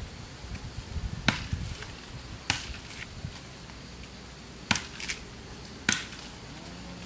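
Machete chopping into undergrowth and small stems: about five sharp, irregularly spaced strikes.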